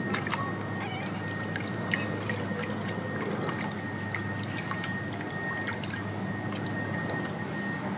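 Water splashing and trickling in a plastic basin as hands rub and dip a baby monkey being bathed, with a steady high whine underneath.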